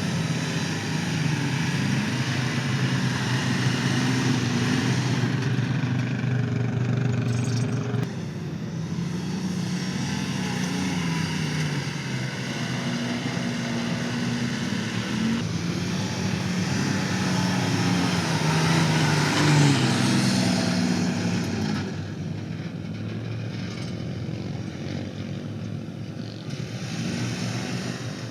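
Toyota 4Runner SR5's 4.0-litre V6 being driven on sand, its pitch rising and falling again and again as it revs up and eases off, over a steady rush of tyre and wind noise.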